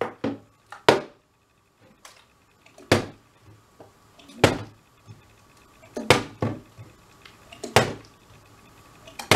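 Partly filled plastic water bottle being flipped and landing on a wooden desk: a run of hollow thuds, about eight, spaced irregularly a second or so apart.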